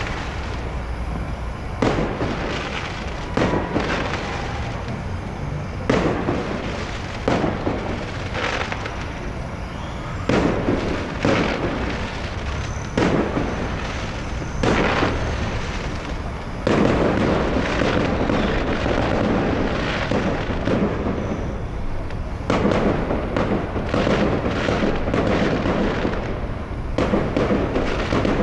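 Fireworks going off, single bangs every second or two, each trailing an echoing rumble. From a little past halfway the bangs thicken into a dense, nearly continuous barrage.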